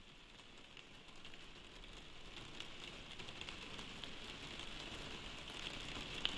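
Faint crackling patter from a lo-fi field recording, slowly growing louder, with one sharp click near the end.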